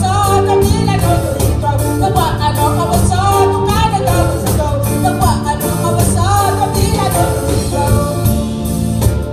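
A live band playing, with a woman's sung melody over keyboards, bass, guitars, congas and drum kit, and jingling hand percussion keeping a steady beat.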